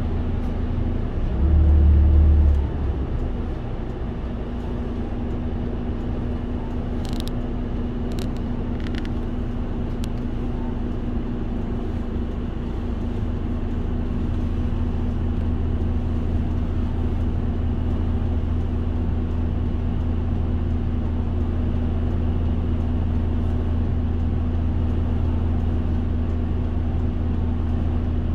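Mitsubishi Fuso Aerostar city bus (2PG-MP38FK) heard from inside the cabin, its diesel engine running at low speed with a steady low hum. A loud low thump lasting about a second comes near the start, and three brief high ticks follow a few seconds later.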